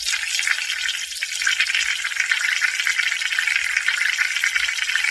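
Peeing sound effect: a steady hissing stream of urine that stops abruptly near the end.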